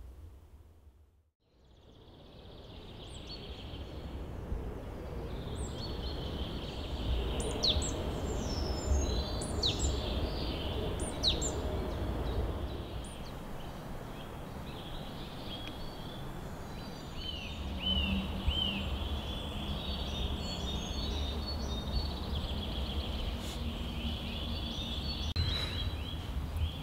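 Songbirds singing at dawn in a spring woodland, many short high chirps, whistled glides and trills overlapping, fading in after a second or so of silence, over a steady low rumble.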